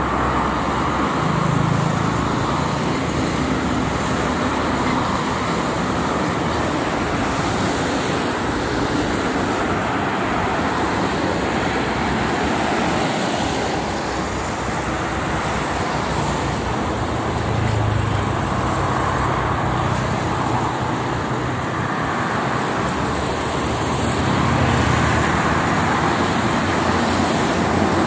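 Steady multi-lane highway traffic: tyre noise and the engine hum of trucks, buses and cars passing. The hum swells about two seconds in and again in the last third as heavier vehicles go by.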